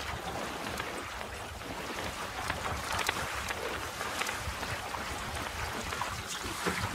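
Water rushing and splashing along the hull of a small wooden lugsail yawl (a Stornoway 18) sailing fast downwind, with wind rumbling on the microphone.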